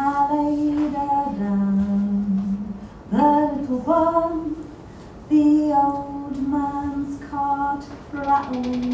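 A woman singing a slow, unaccompanied melody of long held notes in short phrases. It is heard as a film soundtrack played over room speakers.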